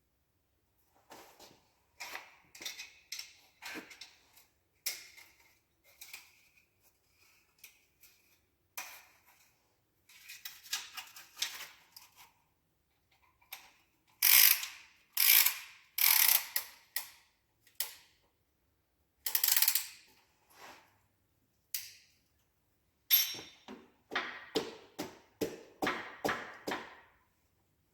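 Hand tools working on an engine block: a ratchet wrench clicking and metal parts and tools clinking in irregular bursts, with a few louder clanks in the middle.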